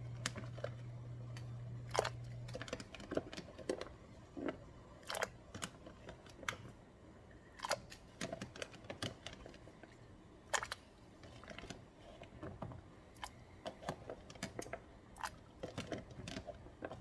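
Scattered light clicks and knocks of a hand-held camera being handled, with a low steady hum that cuts off about three seconds in.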